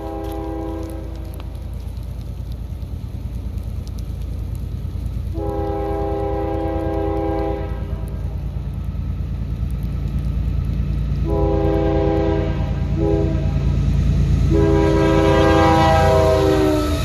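Freight diesel locomotive's multi-note chime horn sounding the grade-crossing signal: the end of one long blast, then another long blast, a short one and a final long one, over the growing rumble of the approaching intermodal train. The last blast drops in pitch as the lead locomotive passes close by.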